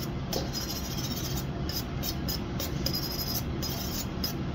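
A chef's knife being honed on a steel: about a dozen quick metal-on-metal scraping swipes, coming faster from about a second and a half in, over a steady low hum.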